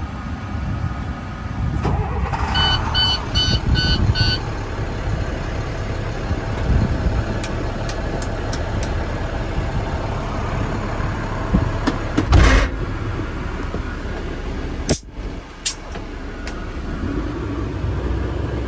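International DuraStar's MaxxForce 7.6 diesel engine idling steadily after start-up. A run of five short beeps sounds a few seconds in, and a short burst of noise comes about two-thirds of the way through.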